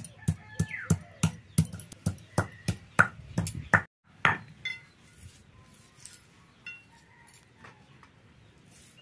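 Cylindrical stone pestle pounding onion on a wooden board, a quick, even run of about three dull knocks a second that stops about four seconds in. After that comes a single clink, then quieter scraping and handling as the crushed paste is pushed onto a steel plate.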